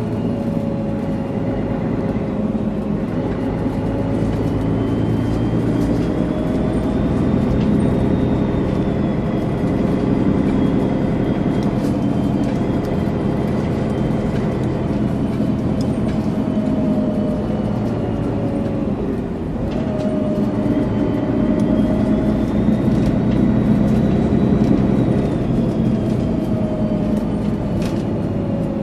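Mercedes-Benz Citaro O530G articulated bus's engine running, with a turbo whistle that rises in pitch and falls away again, twice over. The engine note dips briefly about two-thirds of the way through before the whistle climbs again.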